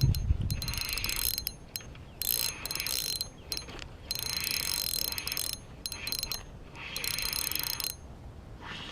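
Fishing reel ratcheting in buzzing runs of a second or so with short pauses between them.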